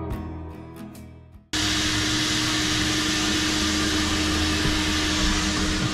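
Background guitar music fades out, then about a second and a half in a coin-operated car wash vacuum starts suddenly. It runs loud and steady, a constant rushing noise with a steady hum.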